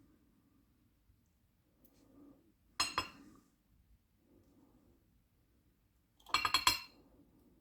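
Light metallic clinks of small lock parts and tools being handled while driver pins are taken out of an ASSA 700 lock cylinder. There is a short cluster about three seconds in and a longer run of several quick clinks near the end.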